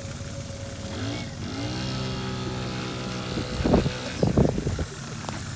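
Honda Spree scooter's small two-stroke engine revving up under throttle, rising in pitch about a second in and then holding a steady note. A few loud, rough bursts of noise come near the fourth second.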